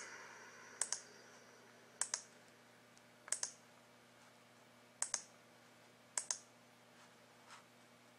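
Computer clicks while browsing a website: about six sharp, short clicks spread over the stretch, three of them in quick pairs, over a faint steady hum.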